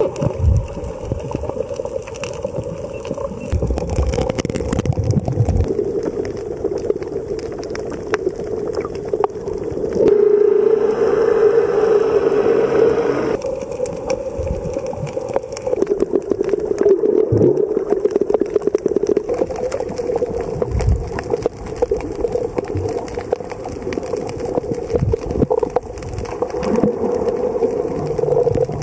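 Underwater recording: a steady droning hum from a boat engine carried through the water, peppered with small clicks and crackles. The drone swells louder for about three seconds around a third of the way in.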